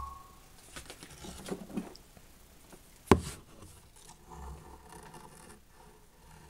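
Light handling noises, small taps, rustles and scrapes, as the CRT tester's socket and lead are handled on the picture tube's neck, with one sharp click about three seconds in.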